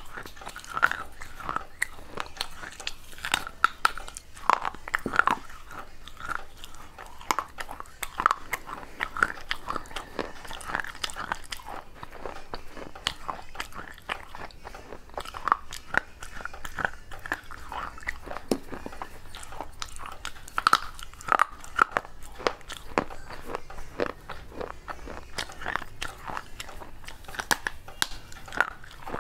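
Pieces of a terracotta clay pot being bitten and chewed: irregular sharp crunches, several a second, as the dry clay cracks and grinds between the teeth.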